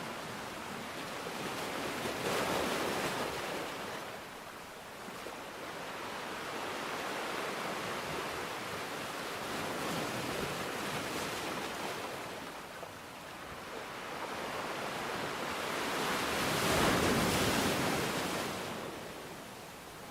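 Steady rushing water noise that swells and eases in slow surges, three times, loudest near the end.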